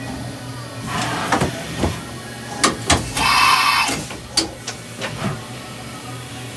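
CNC machining center running with its enclosure open: a steady hum, a series of sharp mechanical clacks, and about three seconds in a hiss that lasts roughly a second.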